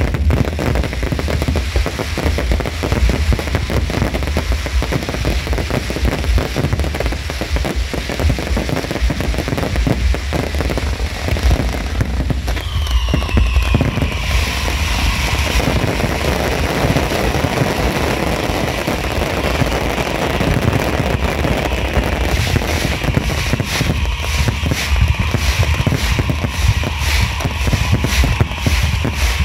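Fireworks barrage: many shells bursting in quick succession with continuous crackling and deep low booms. About halfway through, a whistle falls in pitch.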